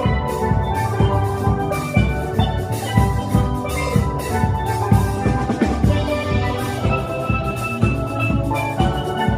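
A steel drum orchestra playing: many steel pans ring out a melody and chords over a drum kit keeping a steady beat.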